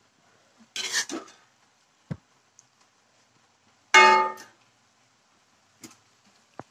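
Metal utensils clattering and knocking against a cooking pot, with one loud ringing clang about four seconds in, then a couple of light ticks.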